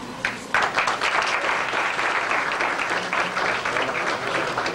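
Audience applauding. A lone clap comes just after the start, then the crowd's clapping sets in about half a second in and goes on steadily.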